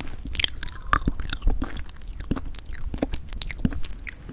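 Close-miked mouth sounds of eating thick yogurt from a wooden spoon: a quick run of wet clicks and smacks of lips and tongue while chewing.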